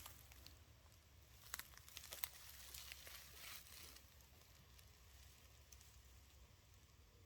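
Near silence, with faint rustling and a few light clicks in the first half, then only a low hum.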